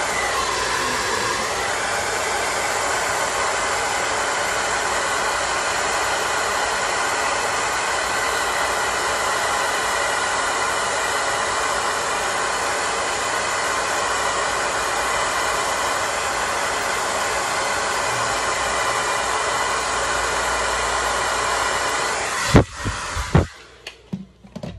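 Handheld hair dryer blowing steadily, then switched off abruptly near the end, followed by a few sharp knocks as it is handled.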